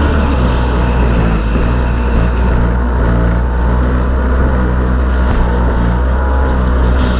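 Square-nose Yamaha SuperJet stand-up jet ski engine running steadily under power, with rushing wind and water.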